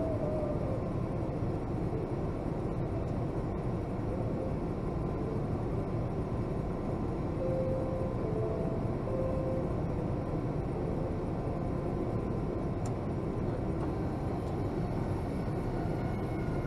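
Steady low rumble and air hiss inside a Boeing 757-200's cabin parked at the gate before pushback, the cabin air-conditioning running on ground power with the engines not yet started.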